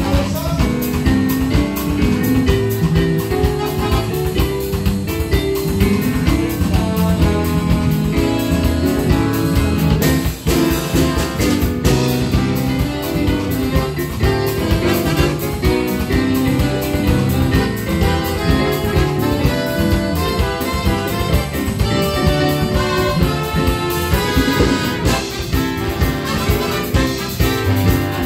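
A live jazz band playing, with saxophones and brass to the fore over a steady drum beat.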